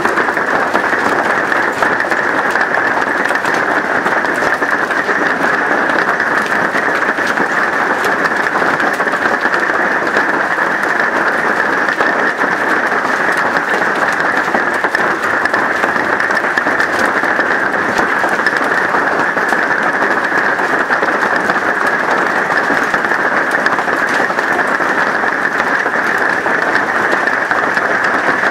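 Hail mixed with rain pelting the roof of a house and the ground: a loud, steady clatter of countless small impacts with no let-up.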